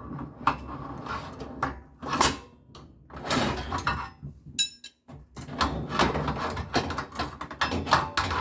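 Garage door torsion spring being turned with a winding bar, the steel bar knocking and clacking in the winding cone in irregular strokes, with a brief squeak about halfway through, as tension goes back onto the new lift cables.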